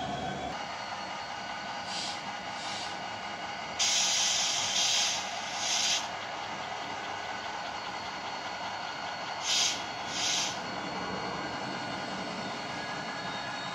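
Model locomotive's DCC sound decoder playing through its small speaker: a steady running sound broken by bursts of hissing. Two short hisses come about two seconds in, a louder one lasts about two seconds from about four seconds in, and two more short ones come near ten seconds.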